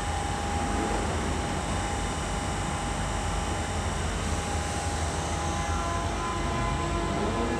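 London Underground Central Line 1992 Stock tube train pulling out of the station, a steady loud rumble in the tunnel platform. A rising motor whine comes in near the end as it gathers speed.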